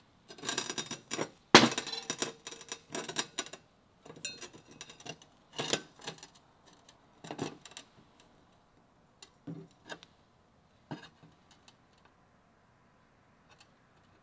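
Irregular clicks, taps and light knocks from a 90-degree exhaust tube bend, with sewing tape wrapped round it, being handled while a cut line is marked on it. Busiest in the first few seconds with one sharper knock, then thinning to scattered taps.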